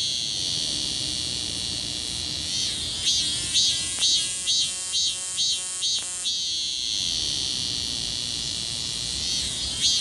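A cicada singing: a steady shrill buzz, breaking about three seconds in into a pulsing rhythm of roughly two pulses a second, then returning to the steady buzz about six seconds in.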